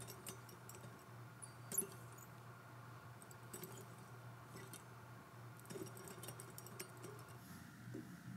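Faint light metallic clicks and ticks as a hand turns the rings of a metal desk gyroscope ornament, with one sharper click about two seconds in and a run of clicks near the end, over a steady low hum.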